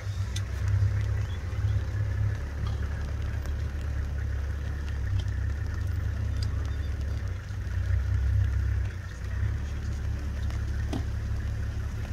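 Low, steady rumble of an idling engine, with a few faint scattered ticks over it.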